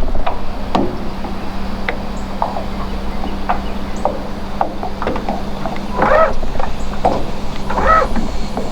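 Electric trolling motor running with a steady low hum, moving the boat up. Light clicks and a few short squeaky chirps sound over it, two of them about six and eight seconds in.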